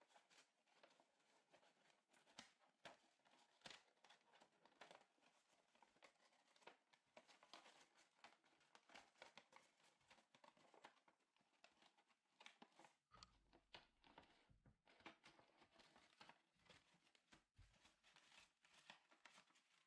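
Faint, irregular rustling and soft crinkling of folded origami paper as a kraft-paper tetrahedron frame and a green paper insert are handled and pressed together.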